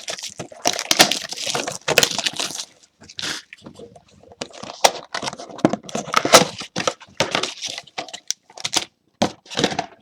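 Plastic wrap on a box of trading cards crinkling and tearing in a run of irregular sharp cracks and rustles as the sealed box is opened.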